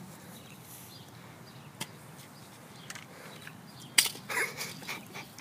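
Toy blaster being fired: a faint click about two seconds in, then a sharp, louder click about four seconds in, followed briefly by a short rustling noise.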